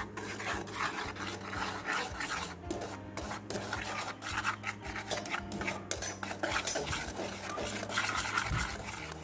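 Dry flour and spice powders being stirred in a bowl: a quick, continuous run of scraping, rasping strokes against the bowl.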